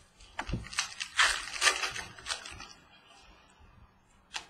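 A trading-card pack's wrapper crinkling and tearing open for about two and a half seconds, then a single light tap near the end.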